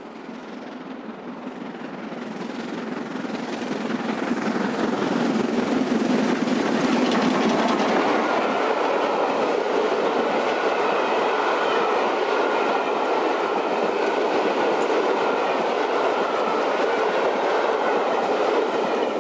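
Steam-hauled passenger train, with LMS Stanier 8F 2-8-0 No. 48151 at its head, approaching and running past. It grows louder over the first six seconds or so as the locomotive draws near, then holds steady as the long rake of coaches rolls by on the rails.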